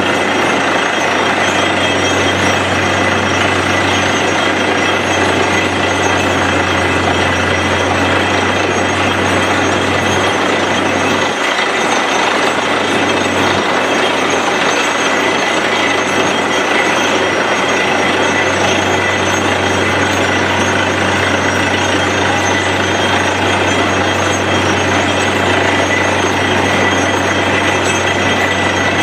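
Truck-mounted borewell drilling rig drilling with compressed air: a loud, steady din of the rig's engine and air compressor, the drill rattling in the rock, and air blowing the cuttings out of the bore.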